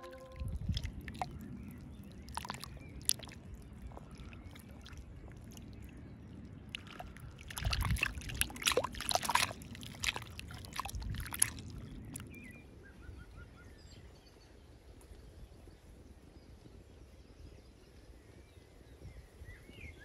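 Small waves lapping and sloshing irregularly against a lake's muddy bank over a low rumble, with the loudest splashes around 8 to 10 seconds in. In the last several seconds it falls quieter, with faint bird chirps.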